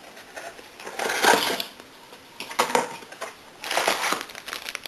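Unboxing packaging being handled: rustling and crinkling in three short bursts as accessories are lifted out.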